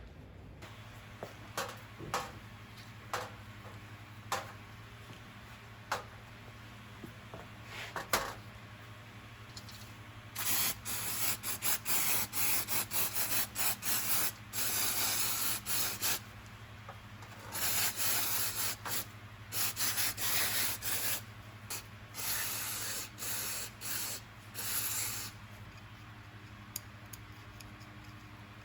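Aerosol spray paint can spraying in many short hissing bursts, after a few light clicks of handling.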